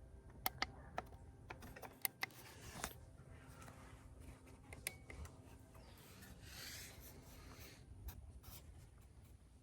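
Faint scattered clicks and a soft rustling rub, like hands handling small parts or controls, with a brief swishing rub about two-thirds of the way through.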